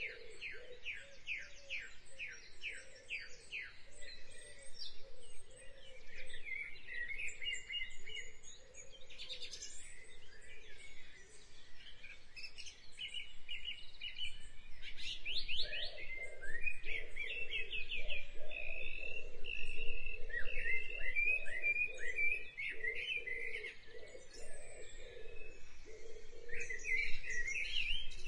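Birds chirping and singing, with rapid trills and quick repeated sweeping notes.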